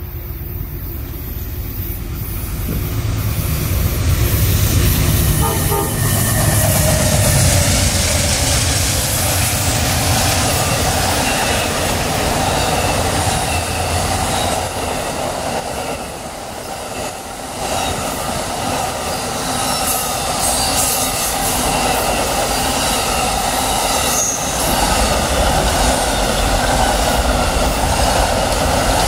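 Amtrak Auto Train passing through the station at speed without stopping: the rolling rumble and rattle of its long string of bi-level coaches and autorack cars on the rails, building up over the first few seconds and then holding steady, with a pitched tone running over it.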